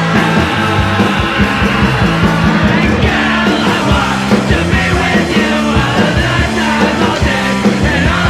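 Punk/hardcore rock song played by a full band, with electric guitars, bass, drums and vocals.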